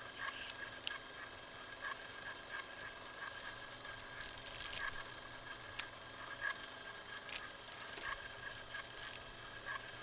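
Analog-style static: a steady hiss with a faint hum under it, broken by scattered irregular crackles and pops.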